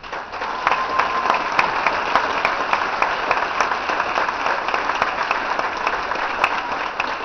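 Audience applauding: a dense, steady clatter of many hands clapping that starts abruptly, with single sharp claps standing out.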